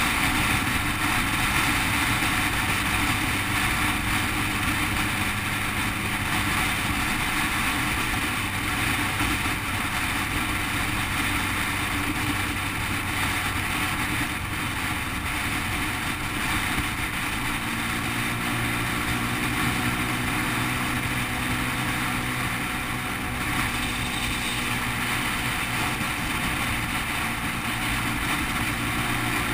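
Single-cylinder motorcycle engine running at a steady cruising speed, with wind rush over the microphone. The engine note shifts slightly about two-thirds of the way through.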